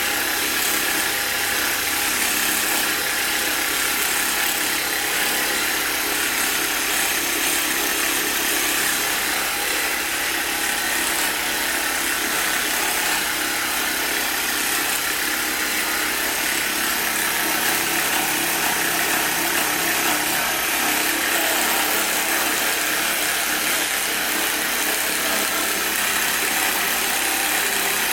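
A small electric motor running steadily.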